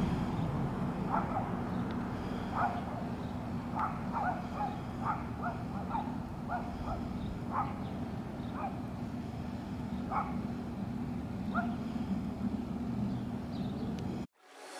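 About a dozen short animal calls, spaced unevenly, over a steady low hum; the sound cuts off abruptly shortly before the end.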